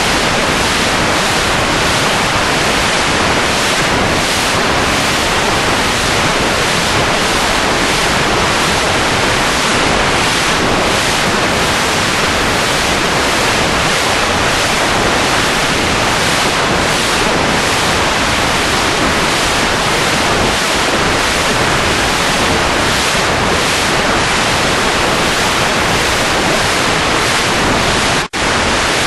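Loud, steady rushing noise like static or surf, with no pitch or rhythm, broken by a brief dropout about 28 seconds in.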